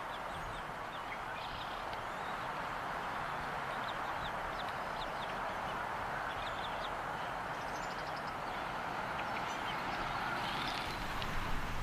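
Steady wind noise at a bald eagle nest, with many short, high-pitched chirps scattered throughout from the eagles.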